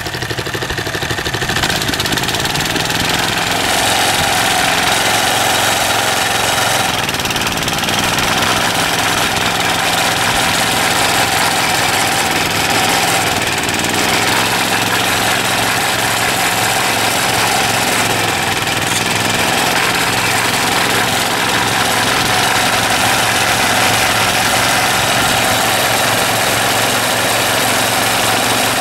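Briggs & Stratton 3 HP single-cylinder engine running steadily after its carburetor rebuild, getting louder over the first few seconds as it is given a little throttle, then holding an even speed.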